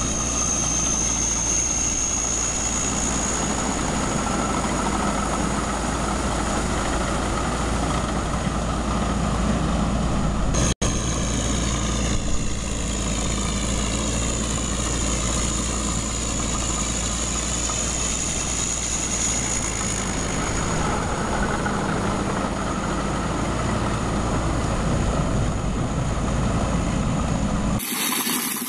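Engine of a small tracked paddy tractor running steadily as it crawls through a muddy rice field. The sound cuts out for an instant about eleven seconds in and changes abruptly just before the end.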